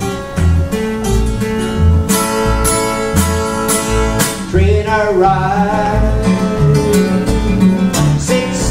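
Two acoustic guitars playing an upbeat country-blues rhythm with a steady pulsing bass. About halfway in, a higher melody line that bends and wavers joins over the guitars.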